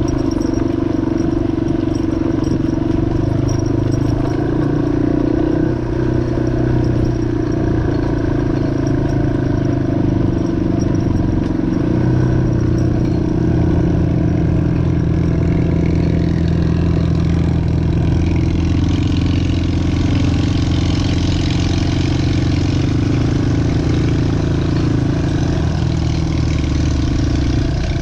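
2003 Yamaha XT225's air-cooled single-cylinder four-stroke engine running steadily while the motorcycle is ridden, its pitch shifting slightly a little before halfway through.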